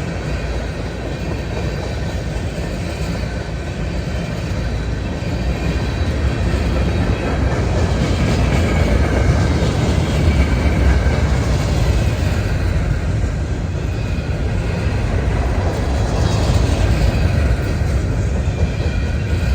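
Freight cars of a CSX manifest train rolling past, with a steady rumble and clatter of steel wheels on the rails.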